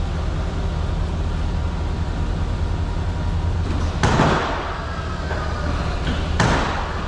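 Steady low hum of an idling truck engine, with two short rushing bursts, about four and six and a half seconds in, from the snowplow's hydraulic pump running briefly as the plow's controller wiring is tested after a loose connection was re-seated.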